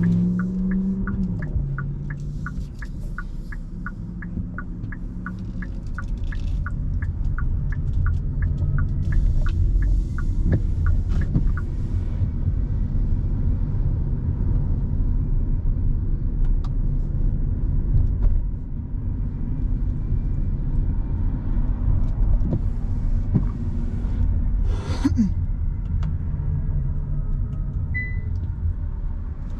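Car driving on wet roads, with steady low engine and road rumble heard from inside. A fast, even ticking runs for about the first twelve seconds, and a short, sharp burst of noise comes about 25 seconds in.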